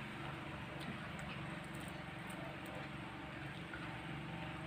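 Faint eating sounds at a table: soft chewing and a few small clicks, over a steady low background hum.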